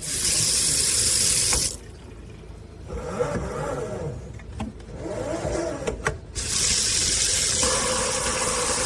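Water from a SOEBIZ pull-down kitchen faucet running into a sink with a loud, even hiss. It drops to a quieter trickle with a few clicks after about two seconds, then comes back at full flow about six seconds in.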